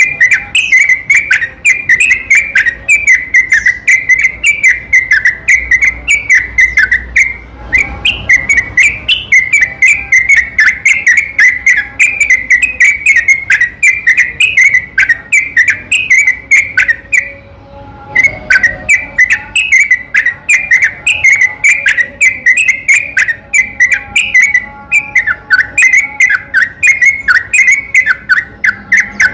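Yellow-vented bulbul song: fast, bubbling runs of whistled notes chained together almost without pause, with one short break about halfway through. It is a lure recording meant to set other bulbuls singing.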